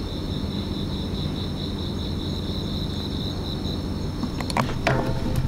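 A high, steady insect trill, pulsing finely, over the low rumble of a bicycle rolling along the street. The trill stops about four seconds in, and a few sharp clicks follow near the end.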